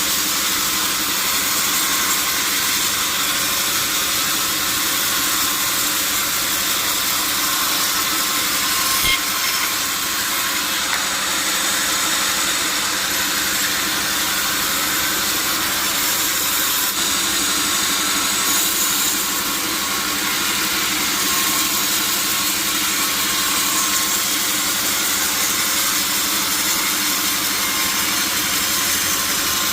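Sawmill saw running steadily, an even, unbroken noise, with a single short knock about nine seconds in.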